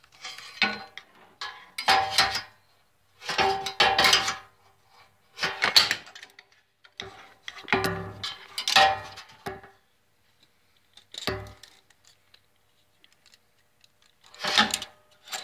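Metal handling noise: about seven short bursts of clattering and rattling with a faint ring, spaced by brief pauses, from tools and the tape measure being moved about near the microphone.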